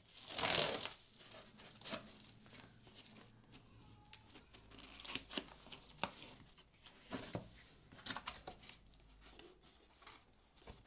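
Plastic bubble wrap ripped off a cardboard TV carton, loudest as one tearing burst about half a second in. After it come scattered rustling, scraping and tapping as a knife cuts the packing tape and the cardboard flaps are opened.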